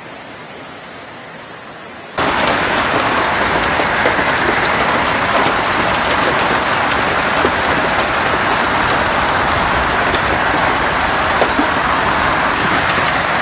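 Hailstorm downpour: heavy rain and hail beating down in a dense, steady roar, with scattered sharp ticks of hailstones striking. About two seconds in it jumps abruptly much louder.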